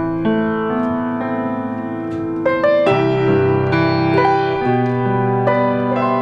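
Keyboard music: slow chords held and changing about once a second.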